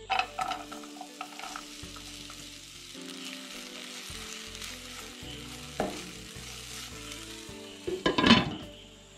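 Chopped vegetables hitting hot oil in a nonstick pan and sizzling steadily, with a spatula tapping and scraping as they are stirred. About eight seconds in, a glass lid clatters loudly onto the pan.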